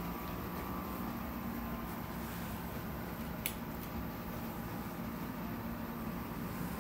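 Steady low hum and hiss of background room noise, with one sharp click about three and a half seconds in.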